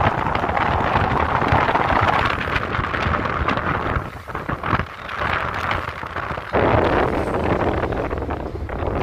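Wind rushing over the microphone on a moving vehicle, with engine and road noise underneath. The rush eases about four seconds in and comes back strongly a couple of seconds later.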